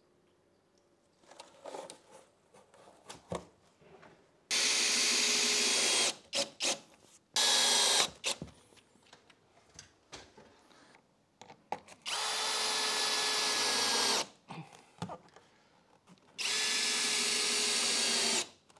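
Cordless drill-driver running in four steady spells of half a second to two seconds, driving screws with washers through PIR foam insulation boards to tack them in place. Light knocks and handling of the boards come between the spells.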